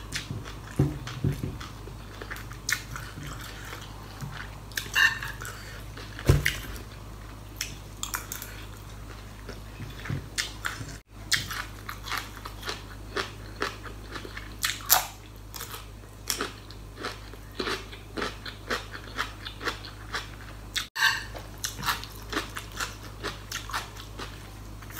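Close-miked chewing of pork larb with crisp raw vegetables: many irregular wet crunches as the food is bitten and chewed.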